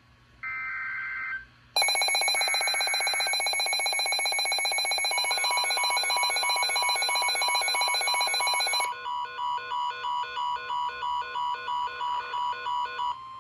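NOAA Weather Radio tornado warning alert: a short burst of warbling digital data tones (the SAME header), then several weather alert radios go off together in a loud pulsing electronic alarm from about two seconds in. A steady warning tone joins it. Past the middle the alarm turns to quick short beeps, about two or three a second, over the steady tone.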